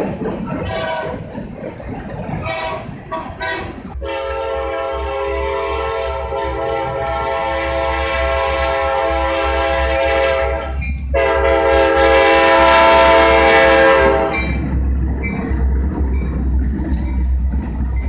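Diesel freight locomotive's multi-note air horn sounding two blasts: a long one of about seven seconds starting about four seconds in, then after a short break a second of about three seconds. The horn follows a rumble of rolling freight cars and gives way to the low rumble of the passing locomotives' engines.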